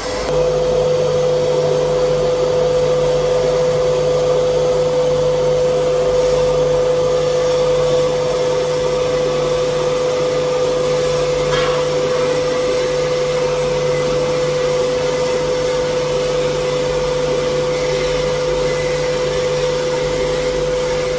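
CNC cutting table with an EOT-3 oscillating knife running as it cuts board. It makes a steady, even hum over a rushing noise, starting just after the opening and stopping at the end.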